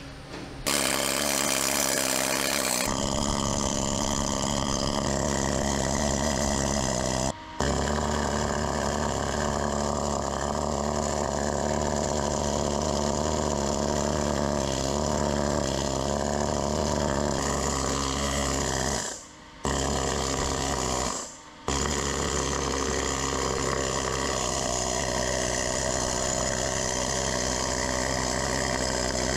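Pneumatic air hammer with a pointed chisel bit hammering rapidly against rusted steel armour, chipping out the rust that has seized the driver's vision block in its housing. It runs almost continuously, with a brief stop about seven seconds in and two more around twenty seconds in.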